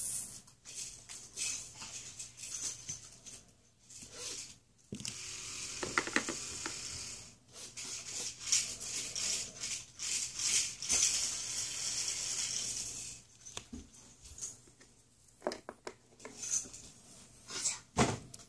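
Small plastic toy figurines being handled up close: fingers rubbing and turning them, with light plastic clicks and taps and a longer stretch of rustling in the middle. A sharper knock near the end.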